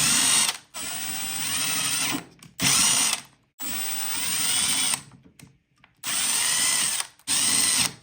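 Small electric drill wire-brushing the screws clean, running in about six short bursts of a second or so, each spinning up with a rising whine and then stopping.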